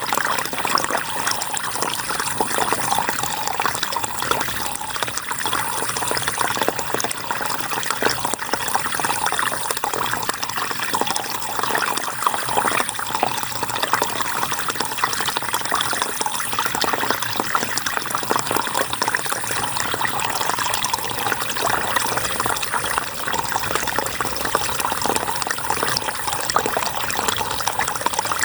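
River water flowing, a steady splashing rush with no breaks.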